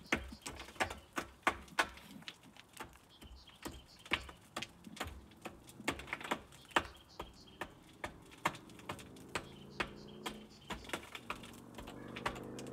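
Sharp taps and clicks, about two or three a second in an uneven rhythm, from hand work on a rusted corrugated steel culvert pipe. About nine seconds in, a low droning hum with a steady pitch rises and grows louder to the end.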